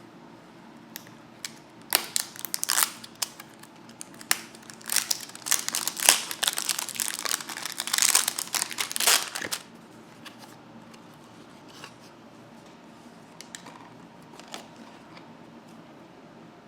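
Packaging crinkling and rustling as it is handled or torn open for several seconds, then a few light clicks and taps. A steady low hum runs underneath.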